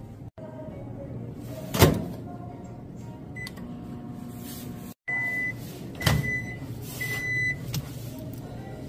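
Microwave oven: a clunk of the door shutting, then a short keypad beep as the time button is pressed. In the second half come three longer beeps at the same pitch, with another clunk from the door.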